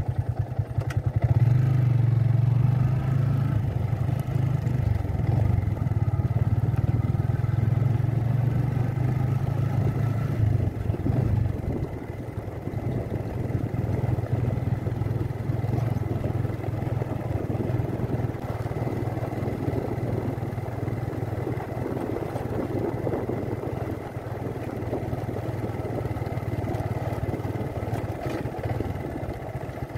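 Motorcycle engine running steadily at low road speed. Its low hum is strongest for the first dozen seconds, then eases a little while the rougher rattle of riding over the dirt track comes up.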